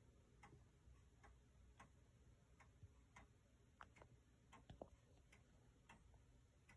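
Howard Miller Earnest wall clock's pendulum movement ticking, faint and even at about one and a half ticks a second, with a few sharper clicks about four and a half seconds in.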